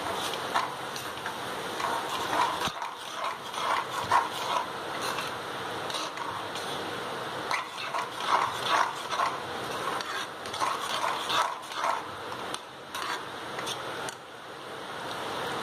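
A slotted spatula stirring and scraping through thick chicken curry gravy in a frying pan, with irregular scrapes and clicks over a steady sizzle.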